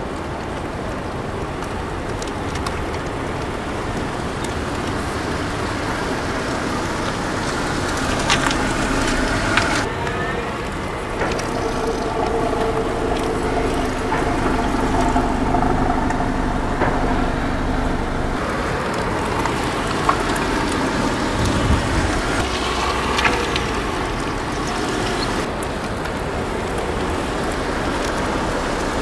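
Car and road traffic noise: a steady rumble of running vehicles with a few faint knocks.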